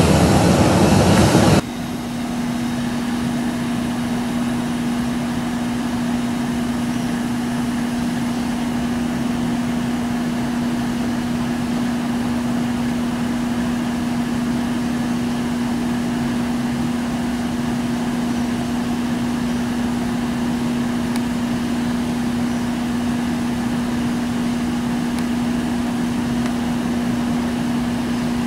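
Jet engine noise from a Boeing 737 on the runway, loud for about the first second and a half and then cut off suddenly. A steady machine hum with one low droning tone follows and stays unchanged.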